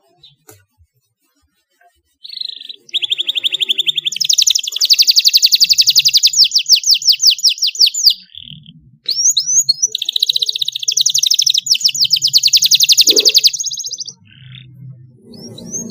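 Domestic canary singing: two long rolling trills of rapidly repeated high notes, the first starting about three seconds in and the second about nine seconds in, with short chirps between them.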